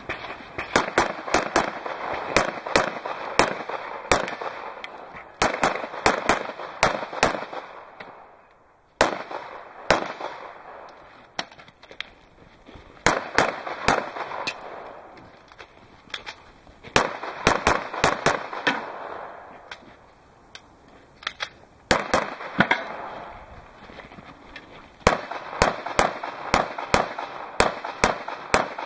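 Handgun fired in quick strings of shots, several clusters of rapid shots separated by brief pauses, each shot with a short echo.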